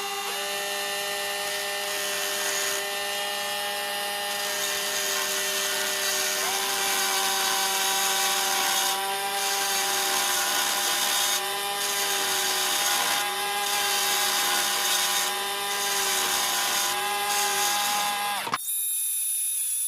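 Handheld power tool running steadily with a high motor whine over a hiss from the material being worked; the pitch dips slightly several times in the second half as it takes load. It cuts off abruptly near the end.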